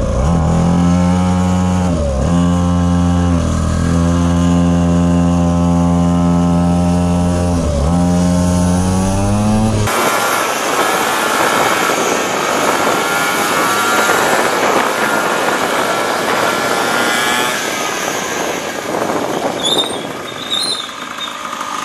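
Small single-cylinder engine of a children's mini ATV running at steady throttle, close up. Its pitch dips and recovers three times as the throttle is eased and reopened. About halfway through the sound changes abruptly to a noisier rush of wind and engine noise from a motorcycle riding behind it.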